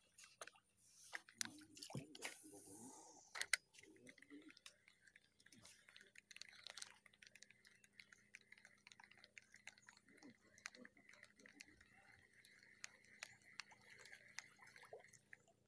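Mostly quiet, with faint irregular clicks and taps from fishing tackle being handled in a small boat during a lure retrieve; the loudest knock comes about three and a half seconds in.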